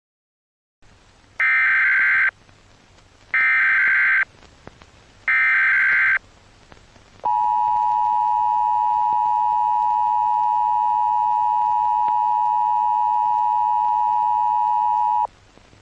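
Emergency Alert System broadcast signal: three short bursts of SAME header data tones, evenly spaced, then the steady two-tone EAS attention signal held for about eight seconds.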